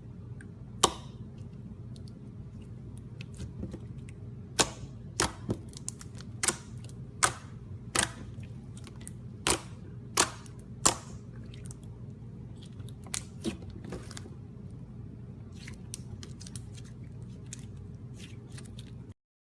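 Slime being pressed and stretched by hand, giving sharp, irregular clicks and pops over a steady low hum; the sound cuts off suddenly near the end.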